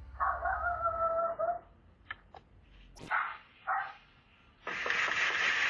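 A dog barking: a held pitched call near the start, a couple of short barks in the middle, and a longer noisy burst near the end.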